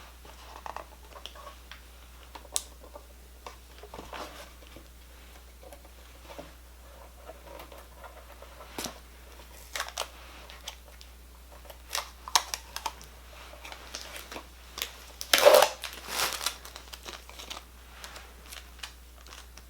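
Plastic packaging crinkling and rustling while the scanner is handled, with scattered small clicks and taps; the loudest rustle comes about fifteen seconds in.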